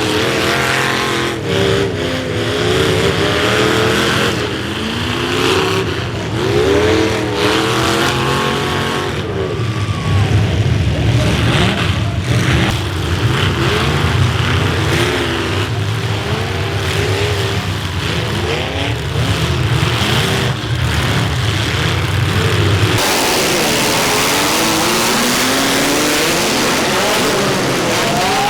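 Demolition derby cars' engines revving up and down, with repeated sharp crashes as the cars collide.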